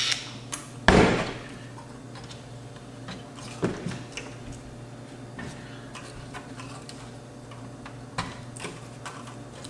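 Scattered small clicks and knocks of ribbon-cable connectors and plastic parts being handled and pulled loose inside an AV receiver, with one loud knock about a second in.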